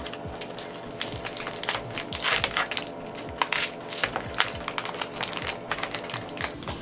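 Crinkling and crackling of an instant oatmeal cup's plastic inner wrapping and paper cup as it is handled and pulled open by hand, in quick, irregular crackles.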